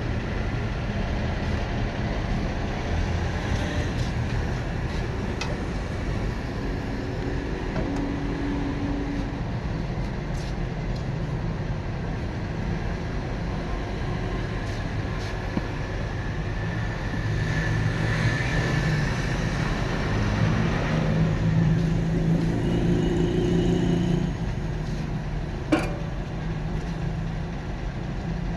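Steady low engine rumble, like motor traffic or an engine running close by, swelling somewhat in the latter half. A single sharp metallic clank sounds near the end.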